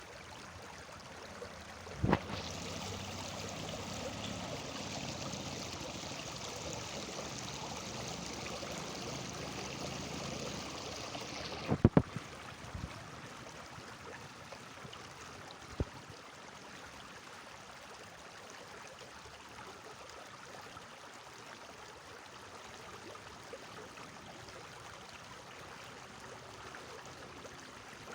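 Running water of a stream, a steady rushing flow. A louder, brighter rush of water comes in abruptly about two seconds in and cuts off about ten seconds later, each change marked by a sharp click, with another short click a few seconds after.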